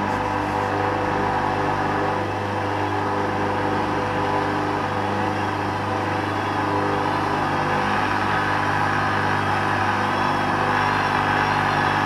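Hoover Dynamic front-loading washing machine's drum turning with a load of wet laundry during the spin, its motor running with a steady hum: the machine is trying to balance the load before spinning up. A faint wavering whine comes in near the end.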